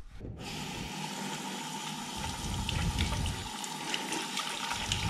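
Tap water running into a bathroom sink as a steady hiss. The sound starts about half a second in, with light handling of a rubber dive mask being scrubbed under the tap.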